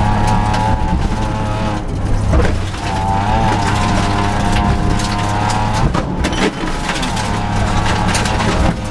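Rally car engine heard from inside the cabin, running hard on a dirt stage. The revs drop sharply about two seconds in and again about six seconds in, each time climbing back up, with scattered sharp clicks and knocks over the top.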